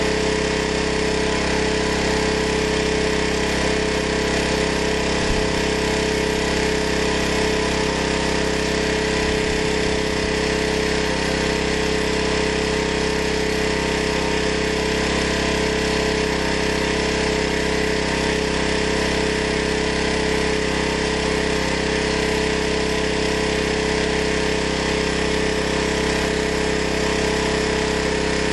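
Small gasoline-powered portable generator engine running steadily at a constant speed, a loud, even mechanical drone with no change in pitch.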